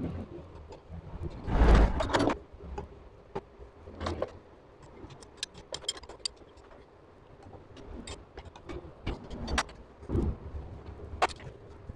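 Metal clinks and knocks of hand tools and engine parts as a Honda CG125's flywheel magneto rotor is fitted over the stator and its centre nut is worked with a spanner. The loudest is a heavy knock about two seconds in, and sharp clicks come at irregular intervals.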